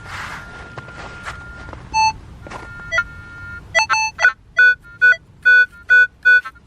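Metal detector beeping as its coil is swept over a dug target: a couple of single tones, then short beeps about two a second. The signal is the detector's response to a buried target, which sounds good to the detectorist.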